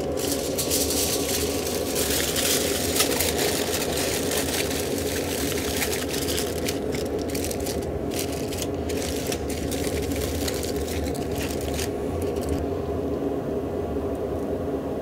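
Aluminium foil crinkling and rustling as hands shape a foil boat around a brisket, dying away about twelve seconds in. A steady low hum runs underneath.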